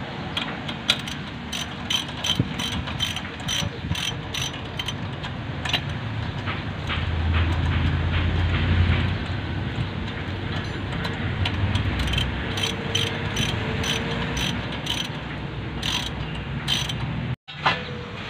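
Ratchet wrench clicking in quick runs as the suspension and knuckle bolts are turned, with a low rumble swelling for a couple of seconds in the middle.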